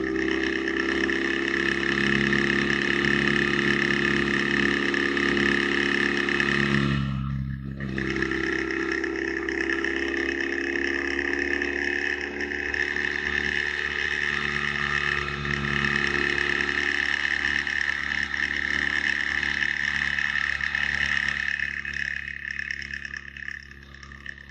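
Motorcycle engine and wind noise at highway speed: a steady drone with a brief break about seven and a half seconds in, getting quieter near the end.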